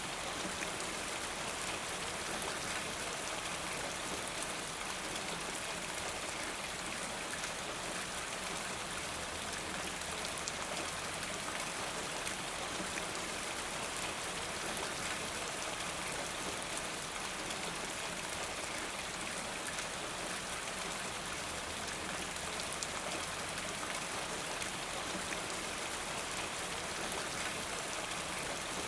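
Steady rain falling, a dense, even patter of drops that keeps up without letting off.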